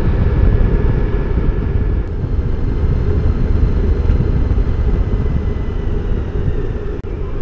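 Suzuki V-Strom DL1000 motorcycle on the move: a steady low rumble from its V-twin engine mixed with the rush of riding.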